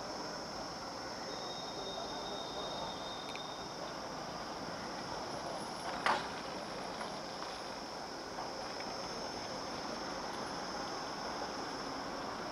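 Steady high-pitched buzz of insects, crickets, over even background noise. One sharp click about six seconds in.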